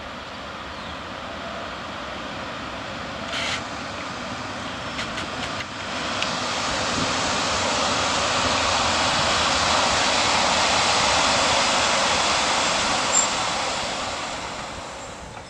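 FS E.646 electric locomotive running light, approaching and passing at low speed: a rushing rail and running noise that builds to its loudest about two-thirds of the way through, then fades. A few sharp clicks sound three to six seconds in.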